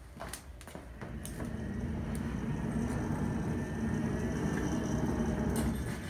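Coal forge fire burning hard under its air blast, a steady rushing rumble that builds up about a second in and holds, with a few sharp crackles and clicks at the start.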